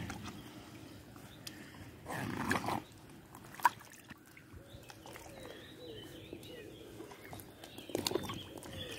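Shallow water sloshing and splashing around a wader-clad angler as he handles a wet carp sling and lifts a common carp out of it. There is a short louder burst about two seconds in and more splashing near the end as the fish comes out.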